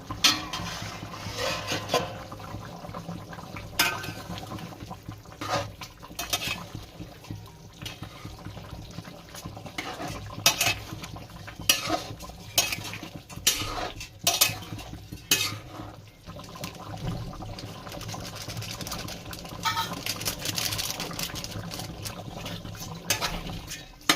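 Spoon stirring and scraping in a cooking pot of curry, with irregular sharp clinks against the pot.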